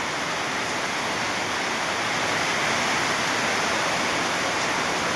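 Heavy rain pouring down, a dense steady hiss that swells slightly about halfway through.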